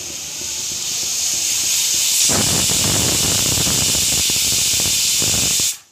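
Hawkins pressure cooker whistle going off: a steam hiss builds, then about two seconds in steam jets out past the lifted weight in a loud, fluttering hiss, cutting off suddenly near the end. It is the sign that the cooker has reached full pressure, one of the whistles counted to time the meat's cooking.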